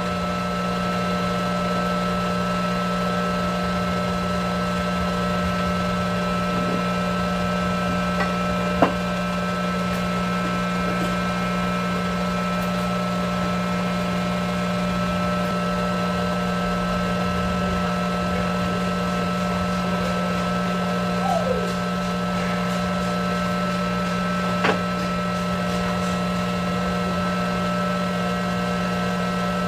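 A workshop machine's motor running at a steady, unchanging drone, with two sharp metallic clicks.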